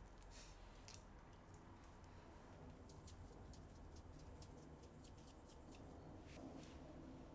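Faint wet squishing of hands pressing raw chicken breasts on a wooden cutting board, then light scattered ticking as salt is sprinkled over the meat from a dispenser.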